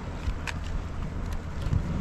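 Wind buffeting the microphone as a steady low rumble, with a few faint short clicks over it.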